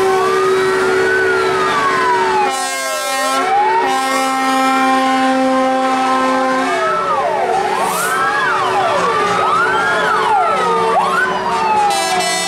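Several fire-truck sirens wailing at once, their pitches sliding up and down and overlapping, over steady held horn tones, as old Škoda 706 RTHP fire trucks pass one after another.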